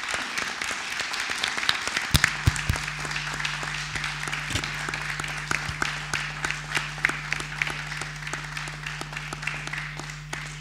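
Audience applauding: many hands clapping steadily, cut off suddenly at the end. A steady low hum comes in about two seconds in.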